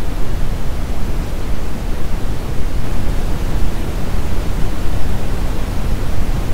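Loud, steady static hiss that covers low and high pitches evenly, with a strong low rumble underneath.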